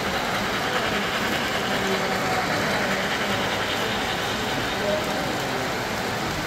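O-gauge three-rail model trains running past on the layout: a steady rolling noise of wheels on the track and running motors.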